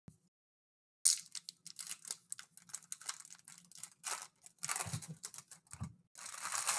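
Foil trading-card pack wrappers torn open and crinkled by hand: a quick run of sharp crackles starting about a second in, turning to a denser, continuous rustle near the end.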